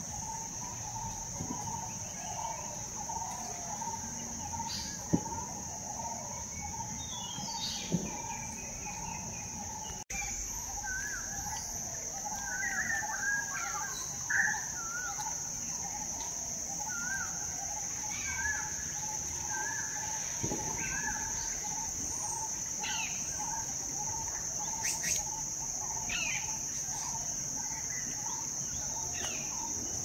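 Tropical forest ambience: insects keep up a steady high-pitched drone while birds call throughout, with a busy run of short warbling calls in the middle. Two sharp snaps stand out near the start.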